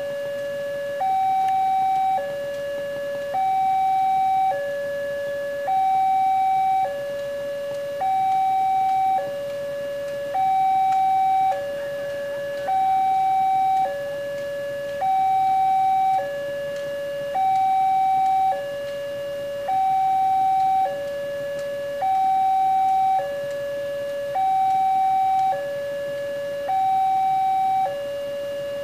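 Railway level-crossing warning alarm from the pole-mounted horn loudspeaker: an electronic two-tone signal alternating steadily between a higher and a lower note, each held about a second, with the higher note louder. It sounds while the barrier is down, warning that a train is approaching.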